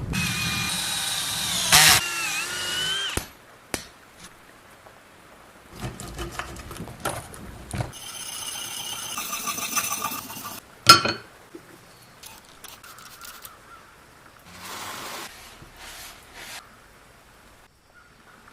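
Electric power tool working metal in two bursts of a few seconds each, its whine dipping and wavering in pitch under load, with scattered clanks and taps in between.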